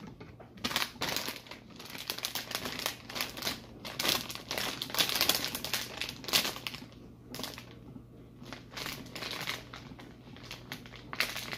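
Clear plastic packaging bag crinkling and rustling as it is handled, in irregular crackles, with quieter stretches in the second half.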